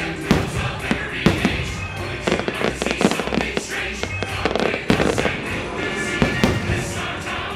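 Fireworks bursting in a quick, uneven string of sharp bangs and pops over loud show music.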